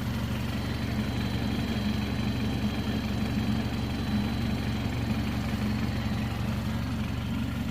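BMW F-series car engine idling steadily.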